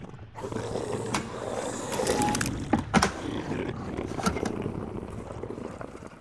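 Plastic bin of a small-parts organizer rack scraping and rattling in its plastic slot as it is worked back and forth, with a few sharp clacks; the bin sticks and does not come out easily.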